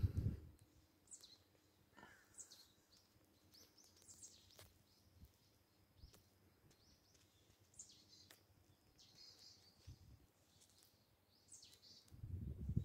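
Faint bird chirps, short high falling calls every second or two, over a quiet background. A low rumble comes in near the end.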